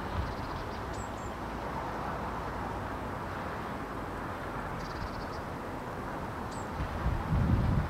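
Outdoor ambience: a steady rushing background noise with a few faint, short, high bird chirps, about a second in and again near six and a half seconds, and a brief low rumble of wind on the microphone near the end.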